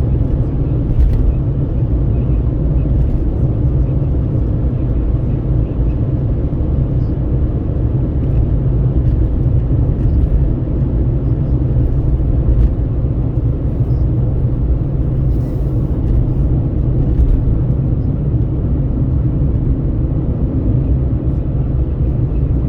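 Road noise inside a moving vehicle at highway speed: a steady low rumble of engine and tyres, with wind at an open window.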